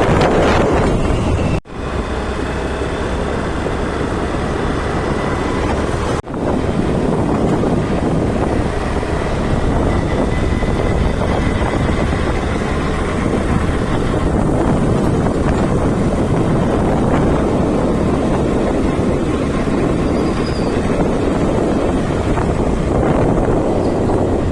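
Steady rushing road and engine noise of a vehicle on the move, with wind buffeting the microphone. The sound drops out sharply for a moment twice, near the start and about six seconds in.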